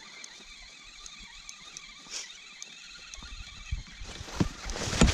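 A small pike being reeled in on a spinning rod toward an inflatable boat: quiet for the first few seconds, then irregular knocks and water splashing growing louder over the last second or so as the fish nears the boat.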